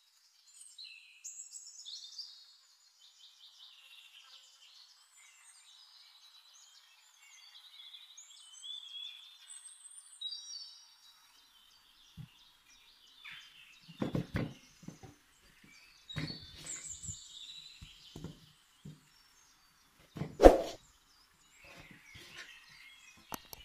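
Birds chirping and singing, many short high calls and whistles. From about twelve seconds in there are scattered knocks on a wooden cutting board as a peeled potato is set down and cut with a knife, the loudest about twenty seconds in.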